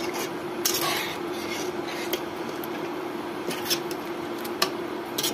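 Metal fork stirring and scraping a watery potato curry in a nonstick frying pan, with scattered clinks against the pan. A steady hum runs underneath.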